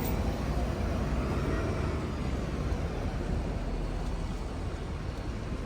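Diesel bus engine running with a steady low rumble that slowly grows quieter.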